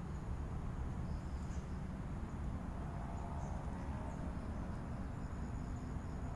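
Outdoor ambience: a steady low rumble with faint, high-pitched insect chirps and a thin insect whine above it.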